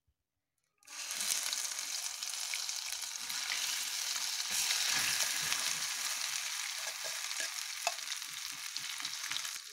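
Ground green peas hitting hot melted ghee in a pan: a sizzle that starts suddenly about a second in and carries on steadily, with a spoon stirring and scraping the paste through it.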